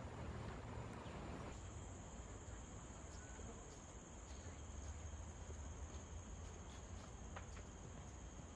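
A steady, high-pitched chorus of forest insects that comes in about a second and a half in, over a low rumble.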